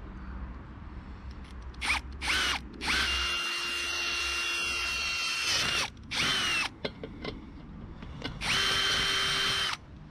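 Cordless drill boring a hole through a metal tube in several bursts. There are two short spins, a long run of nearly three seconds, another short spin, and a run of about a second near the end. The motor whine glides up as it spins up and down as it stops each time.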